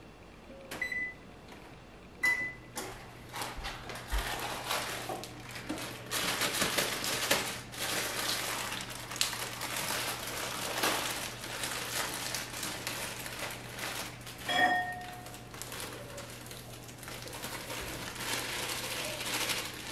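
Two short electronic beeps from an oven's control panel as it is set to preheat, then the rustling and crinkling of the plastic bag of brownie mix being opened and handled over a mixing bowl, with one sharp clink about fifteen seconds in.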